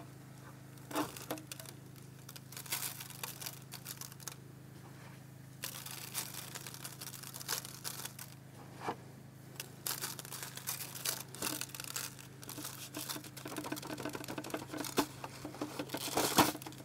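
Irregular crinkling and light crackling of a disposable aluminum foil pan under nitrile-gloved hands as salt and pepper are sprinkled and patted onto a corned beef brisket, over a steady low hum. The crinkling gets denser and louder near the end.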